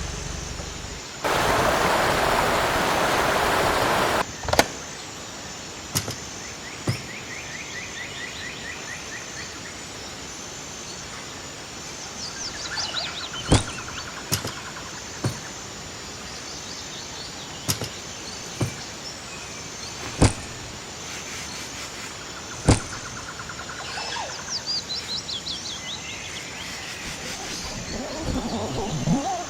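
Forest ambience: birds calling in short chirping trills over a steady high insect drone, with scattered sharp clicks or snaps. A loud rush of noise lasts about three seconds near the start.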